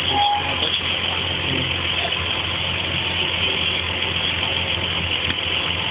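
Farm tractor's diesel engine idling steadily close by, with a brief short tone just after the start.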